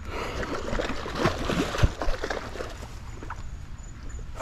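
Foamy water rushing and splashing among rocks, with scattered knocks and scrapes, the loudest about two seconds in.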